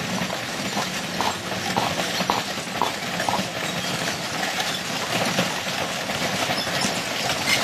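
Horse hooves clip-clopping over the steady rattle and rumble of a horse-drawn wagon's wheels, with short knocks repeating unevenly throughout.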